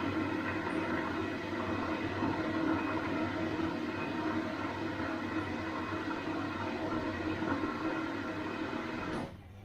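Bosch washing machine running with a steady whir and hum. About nine seconds in the noise drops off sharply, leaving a quieter low hum.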